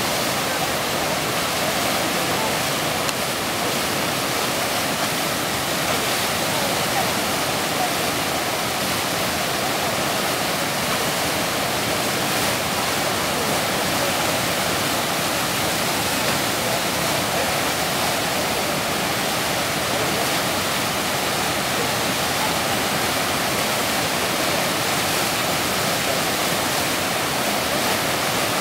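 Tidal rapids at flood tide: fast sea water rushing and breaking in a large standing wave, a steady, even rushing noise that does not let up.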